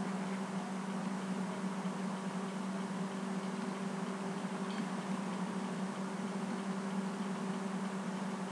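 Steady low hum with an even hiss underneath: background room noise of the recording, with no other event apart from a faint tick near the middle.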